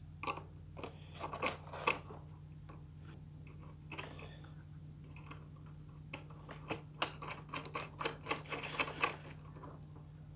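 Small clicks and rattles of an RC plane's propeller and prop adapter being handled and fitted onto the motor shaft, in a cluster about a second in and a longer run from about six to nine seconds in, over a steady low hum.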